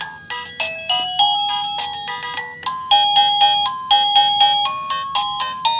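A Liztek wireless doorbell receiver playing one of its built-in electronic ringtone melodies: a quick tune of single beeping notes, each struck sharply and fading, a few notes a second.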